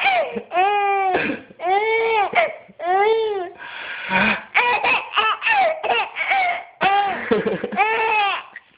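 A baby laughing hard: a run of long, high, squealing laughs, each rising and falling, about one a second, with a short breathy break about four seconds in.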